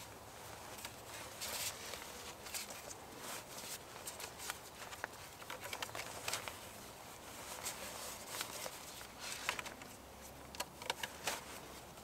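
Cord being wound and pulled tight in a lashing around two wooden poles: irregular rustling with small scrapes and clicks, over a faint steady hiss.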